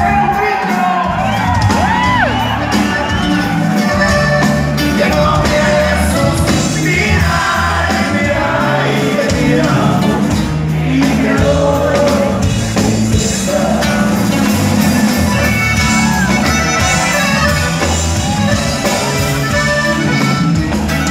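Live norteño band playing: button accordion, guitar, bass and drums, with singing and shouts and whoops from the crowd.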